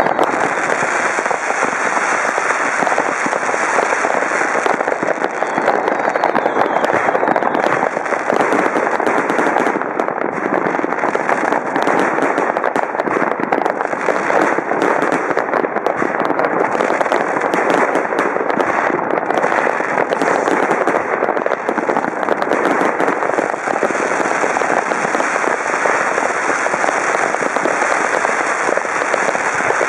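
Many fireworks and firecrackers going off at once from several places across the city, an unbroken din of overlapping crackles and bangs with no pause.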